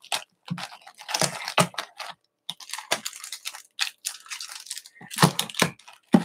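Packaging torn and crinkled by hand while a tightly wrapped package is opened: irregular crackles and rips with short pauses between them.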